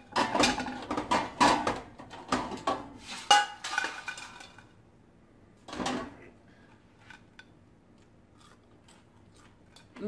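Crispy fries being tipped from an air fryer's basket onto a ceramic plate: a quick run of clatters and knocks of the basket and fries against the plate, with one more knock about six seconds in, then only faint ticks.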